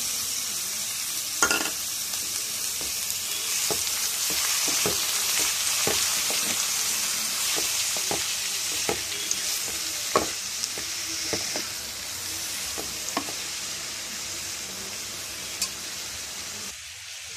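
Chopped cabbage, carrot and beans with soaked moong dal sizzling in oil in a metal kadai while being stirred. The steady sizzle carries irregular clicks and scrapes of a wooden spatula against the pan, and it drops away briefly near the end.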